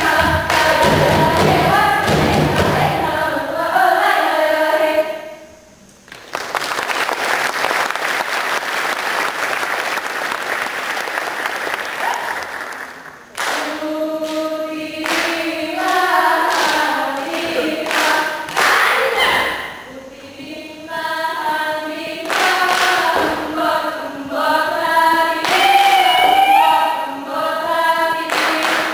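Saman dance troupe chanting together in unison, the voices punctuated by sharp hand claps. About six seconds in the singing stops for a dense, even patter of clapping lasting about seven seconds, then the chanting and claps resume.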